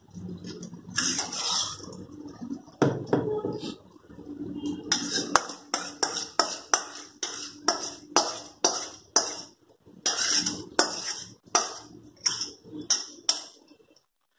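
Spoon scraping and knocking against a stainless steel pan as thick masala is scraped out onto a banana leaf. Handling noise comes first, then about two sharp scrapes and knocks a second, stopping abruptly near the end.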